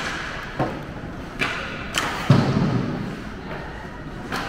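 Ice hockey play: several sharp clacks of sticks and puck on the ice, with a heavier thud about two seconds in, the loudest of them.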